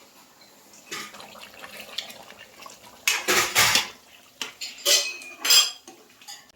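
Dishes and metal cutlery clattering and scraping as food is served, with several loud clanks in the second half.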